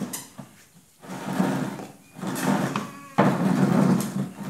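Plastic chair knocking and scraping on a concrete floor as a toddler pushes it, in several separate bursts. A steadier noise sets in abruptly about three seconds in.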